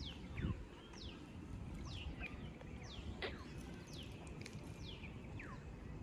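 A bird calling with short, high whistled notes that fall in pitch, repeated about once a second, faint over low background noise.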